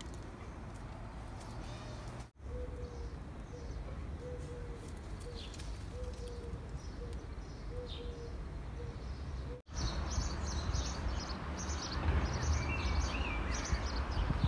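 Outdoor ambience of small birds chirping over a low steady rumble, in three stretches split by two abrupt cuts. In the middle stretch a low call repeats several times. After the second cut, about ten seconds in, it grows louder, with many quick high chirps.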